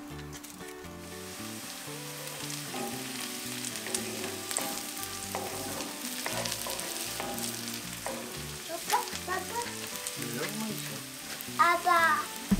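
Sliced onions sizzling in oil in a cast-iron skillet, starting about a second in, stirred and scraped with a wooden spatula, with scattered taps of the spatula on the pan. Near the end comes a short burst of high, squeaky chirps, the loudest sound.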